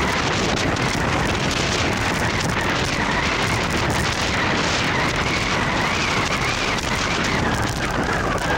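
Wind buffeting the microphone with road noise from a vehicle travelling along the road at steady speed, a constant loud rush with a faint wavering high whine running through it.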